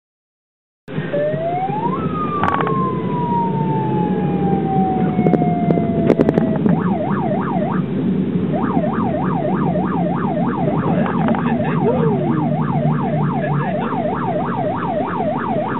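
Electronic siren sounding over car engine and road noise in the cabin, starting about a second in. It gives one slow wail that rises and then falls, then switches to a fast up-and-down yelp at about three cycles a second.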